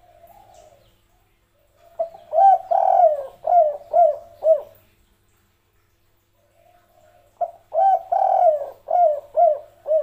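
Spotted dove cooing: a soft low coo at the start, then two loud phrases about five seconds apart. Each phrase is a couple of quick notes and a longer drawn-out coo, ending in three short 'kuk' notes: the song type known as tekukur 'kuk 3'.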